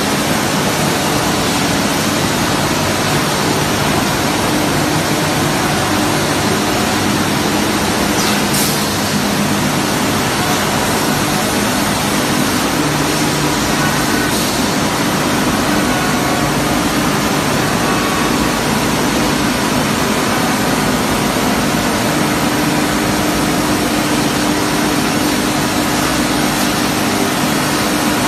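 Tube mill running: a steady, loud machinery noise from the forming-roll stands and their drives, with a constant low hum.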